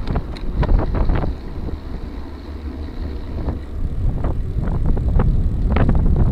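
Wind buffeting the microphone of a gravel bike riding over rough trail, with scattered knocks and rattles from the bike. It eases off for a couple of seconds in the middle.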